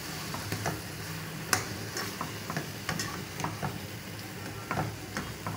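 Chicken, tomato and yogurt masala sizzling in a karahi while a spatula stirs it, scraping and clicking irregularly against the pan.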